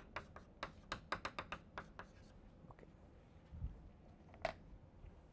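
Chalk writing on a blackboard: a quick run of light taps and scratches over the first two seconds or so, then fewer taps and a single sharper tap about four and a half seconds in.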